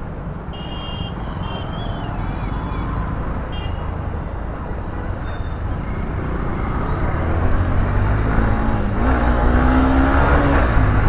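Honda Shine motorcycle riding through city traffic: a steady engine and road rumble that grows louder over the last few seconds as a pitched engine note comes in.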